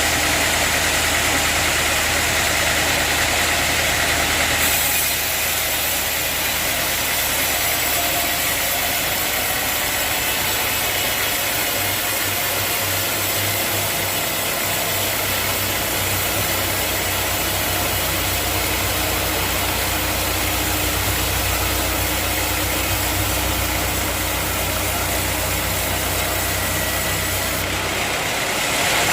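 A sawmill's engine running steadily with a constant hiss. The sound changes abruptly about five seconds in and again near the end.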